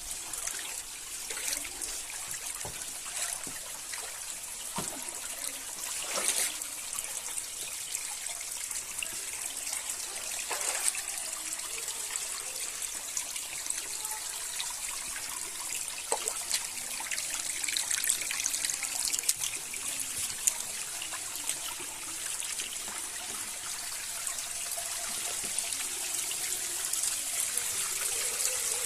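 River water running: a steady trickling rush with scattered brief splashes.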